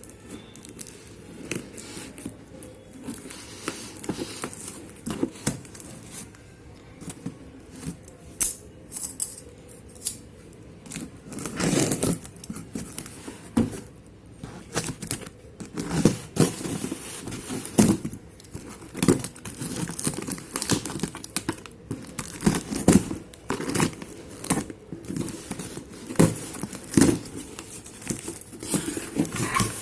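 Packing material being torn and crumpled by hand: irregular crinkling, rustling and sharp tearing sounds.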